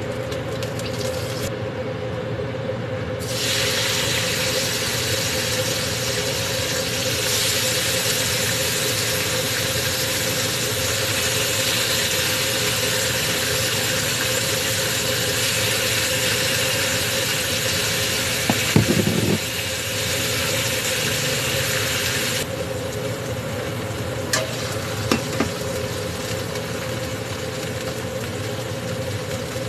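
Food sizzling in hot oil in a pan. The sizzle starts a few seconds in and stops suddenly about three quarters of the way through, over a steady machine hum. A few short knocks come near the middle and later.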